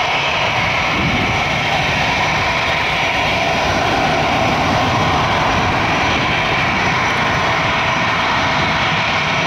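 Airbus A320-214's twin CFM56 turbofan engines at high thrust as the airliner rolls away down the runway on its takeoff run: a loud, steady jet rumble with a hissing top.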